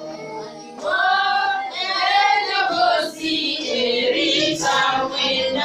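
Worship singing in high voices, the sung lines rising and falling. After a brief lull at the start, the singing comes in strongly about a second in.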